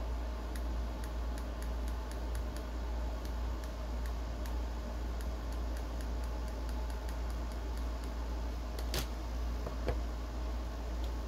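Stylus nib tapping on a Surface Duo 2's glass screen while writing: a string of light, irregular ticks, then two louder knocks near the end as the device is handled. A steady low hum runs underneath.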